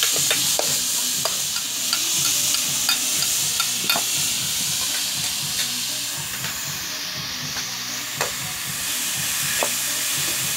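Chicken pieces with lemongrass sizzling in a steel wok, with a metal spatula scraping and clicking against the pan as they are stirred.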